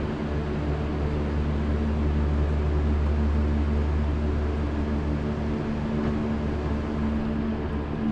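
A steady, low mechanical hum that holds several even tones without a break.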